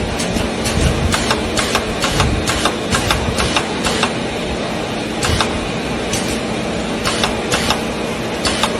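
A machine running steadily: a constant hum with a dense stream of rapid clicks and rattles.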